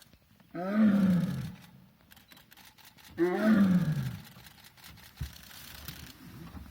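Tiger roaring twice, each call about a second and a half long and rising then falling in pitch.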